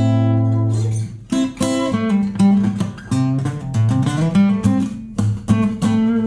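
Fender FA-25 acoustic guitar being played: a chord rings out for about a second, then separate picked notes and short strummed chords follow.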